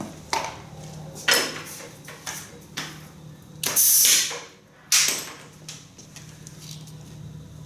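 Impact wrench run in short bursts to spin off the tractor's left-hand-threaded PTO clutch bolt: a few clanks of tool on metal, then a loud burst lasting under a second about three and a half seconds in and a shorter one about five seconds in.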